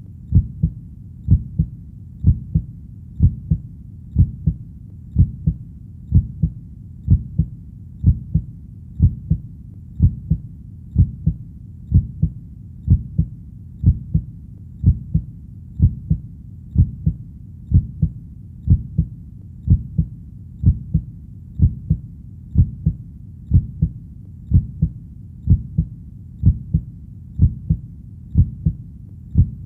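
Recorded human heartbeat, a steady slow rhythm of low double thumps (lub-dub) repeating about once a second.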